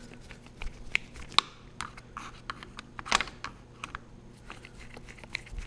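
Irregular small clicks and scrapes of a screwdriver tightening the Phillips screws on a plastic kill switch housing clamped to a handlebar, a few sharper clicks among them.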